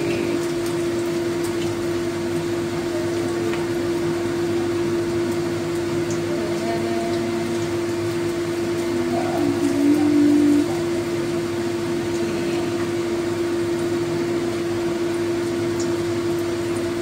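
A steady machine hum, with a brief louder, slightly lower tone about ten seconds in, over faint sizzling of minced-fish patties shallow-frying in oil.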